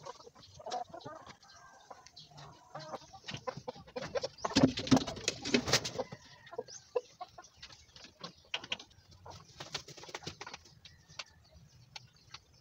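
Chickens clucking at feeding time, with many short sharp taps and clicks through it; a louder stretch of calls about four to six seconds in.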